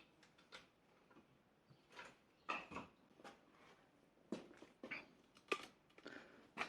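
Faint, scattered clicks and light knocks, about a dozen spread over a few seconds, from engine parts being handled during the head gasket teardown.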